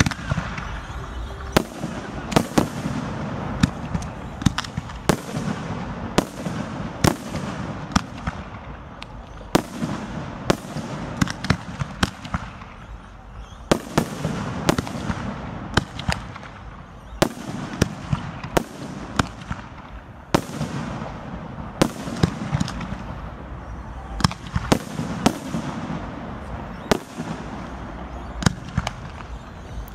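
Aerial fireworks display: shells bursting overhead in a rapid, irregular string of sharp bangs, dozens in all, over continuous background noise between them.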